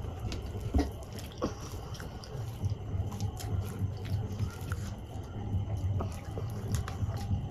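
Close-up eating sounds: fingers squishing and mixing soft khichdi and potato on a steel plate, with many small wet clicks, then a handful taken into the mouth and chewed near the end.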